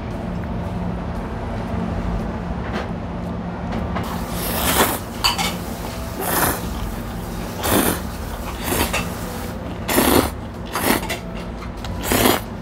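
Slurping instant ramen noodles: after quiet clicking of chopsticks in the first few seconds, a series of about seven loud slurps follows, roughly one a second. A steady low hum runs underneath.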